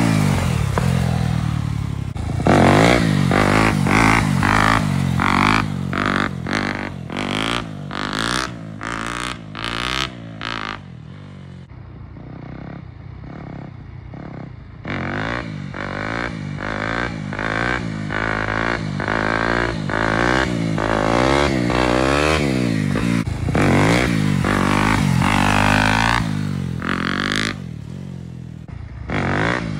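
Dirt bike engine revving up and falling back again and again as the throttle is blipped and held through wheelies. It dies down for a few seconds near the middle, then picks up again.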